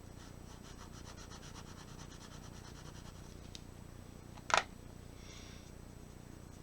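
Watercolor pencil scribbling on watercolor paper in quick back-and-forth strokes to colour a swatch, faintly, then a sharp click about four and a half seconds in and a brief last bit of scratching.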